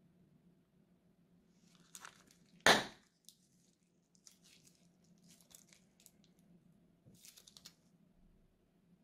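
Plastic zip-lock bag crinkling as white slime mixture is squeezed out of its corner into a glass dish. There is one loud sharp rip of the plastic about three seconds in, then short intermittent rustles.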